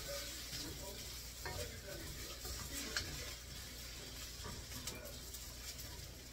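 Rice noodles sizzling in a steel wok while a wooden spatula stirs and scrapes them around the pan, with a few sharper scrapes against the metal.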